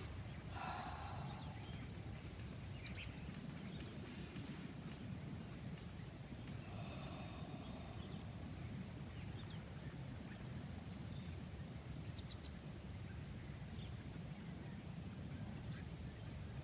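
Quiet rural outdoor ambience: a steady low rumble with scattered faint bird chirps.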